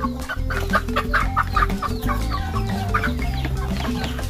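A flock of young layer chickens clucking and calling in many short, overlapping chirps, over background music with low held notes.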